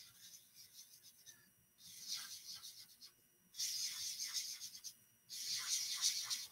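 Marker scribbling on paper, colouring in dots on a ten frame in four separate stretches of about a second each, the first one faint.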